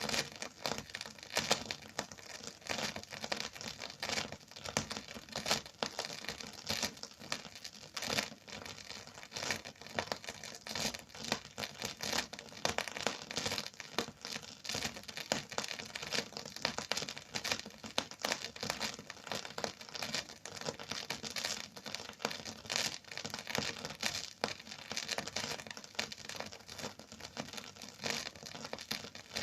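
Record surface crackle: a dense, unbroken run of small irregular clicks and pops, with no music playing.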